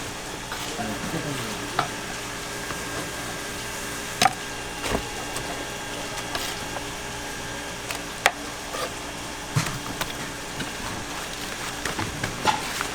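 Knife knocking a few times on a cutting board as fish is cut for sashimi, over a steady hiss.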